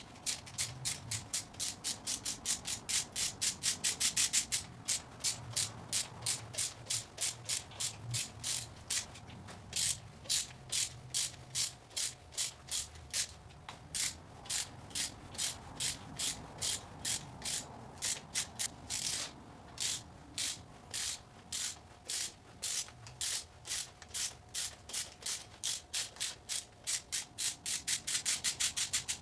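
Hand ratchet clicking as it backs out the 10 mm lower intake manifold bolts on a supercharged GM 3800 Series II engine. The clicks come in a quick run of short bursts, a few a second, broken by brief pauses.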